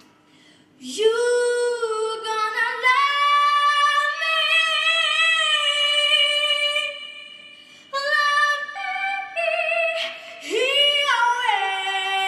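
A girl singing solo into a microphone, holding long notes with vibrato; after a short break about eight seconds in she scoops up into another sustained note.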